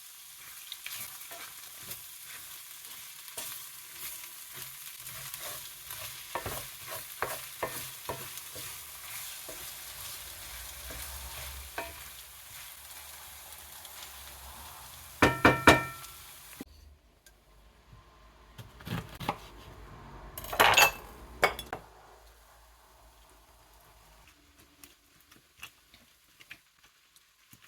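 Chopped vegetables sizzling in a hot pot while being stirred, the spoon scraping and clicking against the pot. About sixteen seconds in come a few louder metal clinks; then the sizzling stops suddenly, followed by a few more knocks of the spoon and pot.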